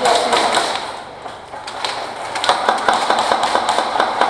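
Airsoft gunfire: scattered sharp cracks and knocks, then a quick burst of rapid shots past the middle.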